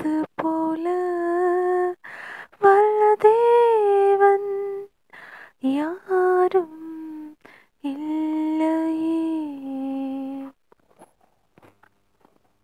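A lone woman's voice humming a Tamil Christian song melody without accompaniment, in long held notes with short breaks between phrases. It stops about ten seconds in.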